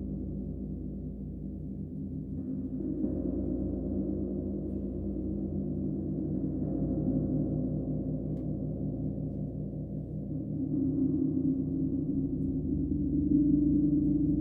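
Gong resonating in a sustained, shimmering wash of low overlapping tones that swells and ebbs over several seconds, growing loudest near the end, with no distinct strike.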